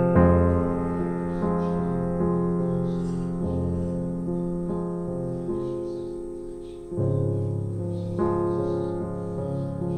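Background piano music: slow held chords, with a new chord struck about seven seconds in.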